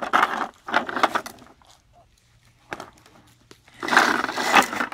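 Hard plastic wheels of a toddler's foot-pushed ride-on toy tractor rolling and scraping over asphalt, in short bursts. There are two near the start, a single click in the middle, and a longer, louder stretch in the last second.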